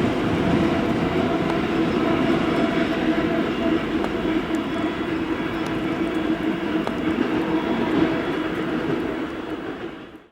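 ChME3 diesel shunting locomotive running light engine past, its six-cylinder diesel engine droning steadily over the rumble of its wheels on the rails. The sound fades away near the end.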